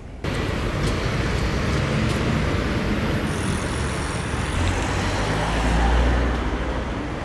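Road traffic on a city street: a steady wash of passing vehicles, with a low engine rumble swelling about five to six seconds in as a heavier vehicle goes by.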